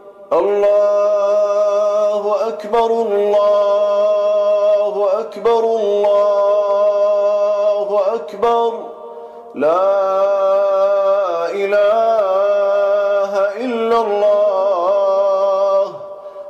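A man reciting the Quran in a melodic, drawn-out Iraqi style, holding long notes on stretched vowels. He sings several long phrases, with short breaths between them, the longest pause about two-thirds of the way in.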